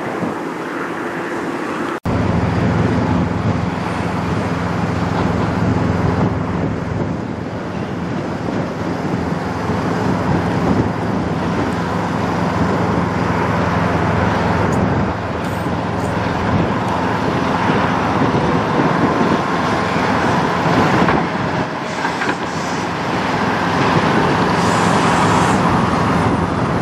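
Diesel engine of a Kenworth semi tractor pulling a loaded trailer at low speed, running steadily as the truck turns across the lot and rolls past close by. The engine sound cuts in suddenly about two seconds in and is loudest near the end as the rig passes.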